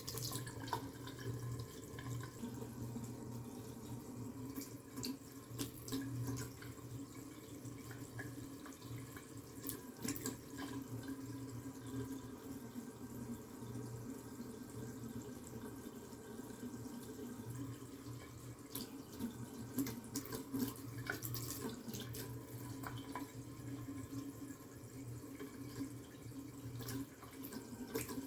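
Water running steadily from a tap or spout, with a low hum beneath it and scattered splashes and drips throughout.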